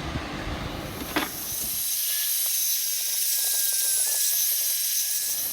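Coarse 60-grit sandpaper on a flat homemade sanding tool rubbing across the rusty, pitted mating face of a Detroit 6V92 exhaust manifold, a steady gritty hiss as the high spots are taken down to flat metal. A short knock comes about a second in, just before the rubbing starts.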